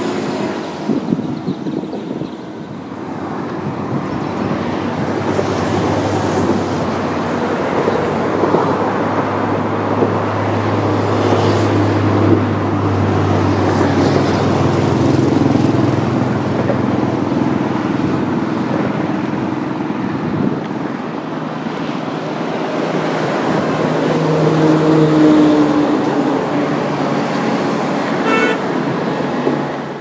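Steady road traffic: vehicle engines and tyres running, with horns sounding now and then.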